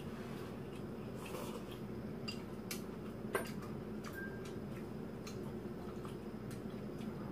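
Scattered light clicks of chopsticks and a metal ladle against bowls and the hot-pot, with one sharper knock a little past three seconds in, over a steady low hum.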